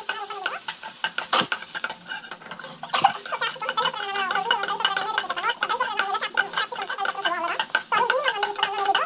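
Diced vegetables sizzling in hot oil in a pan while a flat metal spatula stirs and scrapes them, with many quick scrapes against the pan.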